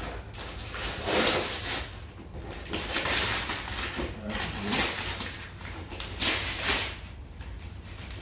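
Wrapping paper tearing and rustling as a gift is unwrapped by hand, in several loud bursts.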